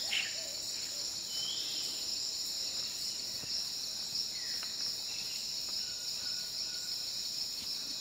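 Night-time insect chorus in the Amazon rainforest: a steady, high-pitched shrill drone, with a few faint calls over it.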